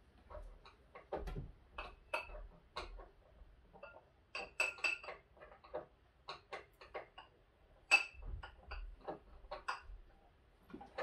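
Scattered light clicks and clinks of small hard parts being handled and fitted together, a few with a short ring, spread irregularly over several seconds.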